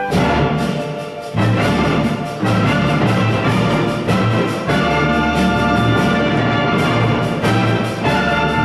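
Live orchestra playing full out with brass to the fore. A loud ensemble entry comes right at the start, after a held chord, and strong accented chords follow.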